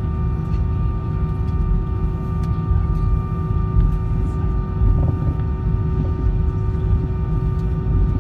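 Cabin noise of an Airbus A320-232 on the taxiway, its IAE V2500 engines at idle: a steady low rumble with a constant hum of several pitched tones.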